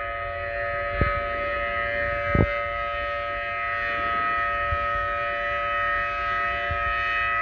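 Outdoor civil defense warning siren holding a steady tone made of several pitches sounding together, with no rise or fall. Two brief low thumps come through about one and two and a half seconds in.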